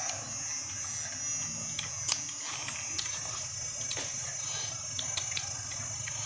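Scattered sharp crunches and clicks of someone eating crab, over a steady high-pitched hiss.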